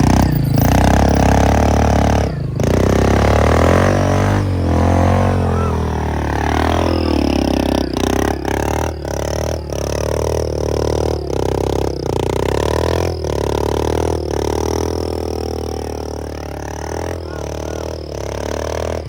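Vehicle engine running under throttle, its pitch rising and falling, with a thin high whistle from a cheap fake turbo whistle fitted in the exhaust. The sound dips briefly many times.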